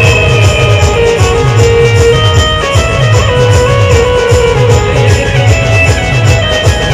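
Live band music: a fast, steady drum beat under a sustained melody line.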